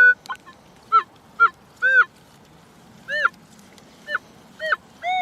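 Metal detector's target signal: about nine short electronic chirps, each bending up and then down in pitch, unevenly spaced.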